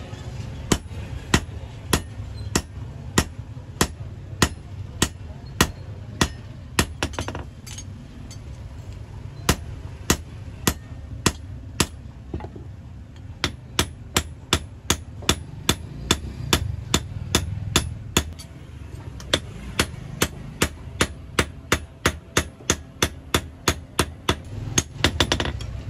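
Hand hammer beating an axe head held in tongs on a steel anvil block: a steady run of sharp metallic blows, about two a second, pausing briefly three times.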